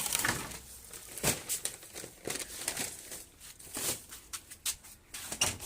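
Irregular rustling and crackling of leaves and plant stems being handled, with many short sharp crackles.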